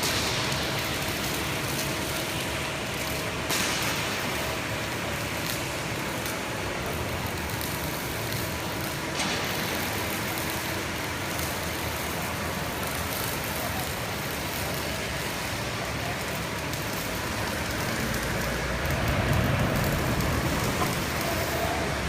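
Steady machine-shop noise from a hydraulic press brake's running hydraulic system, with brief clacks about 3.5 and 9 seconds in and a low rumble swelling near the end.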